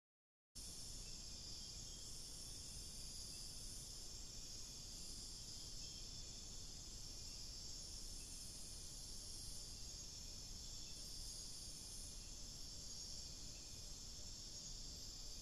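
Night-time rainforest insect chorus: cricket-like insects trilling steadily in several high pitches, the highest layer swelling and fading every second or two, over a low even hiss. It cuts in abruptly about half a second in.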